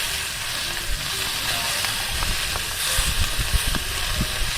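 Beef short-rib (kalbi) slices sizzling on an iron griddle: a steady frying hiss with a few small pops.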